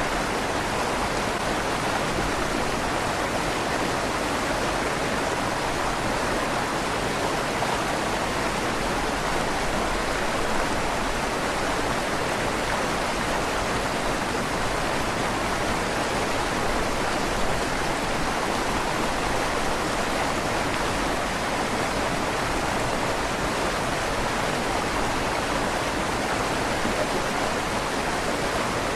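A river flowing steadily under a stone bridge, the rushing water echoing off the inside of the stone tunnel.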